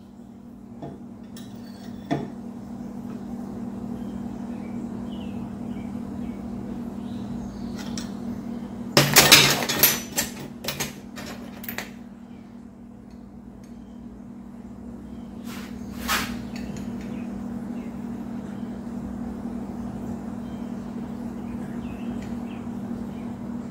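Metal clinks and clanks of a 1/4-inch stainless steel rod and hand tools against a bench vise while the rod is clamped and bent. The sharpest cluster comes about nine seconds in, a few more follow shortly after and a single knock falls later, all over a steady low hum.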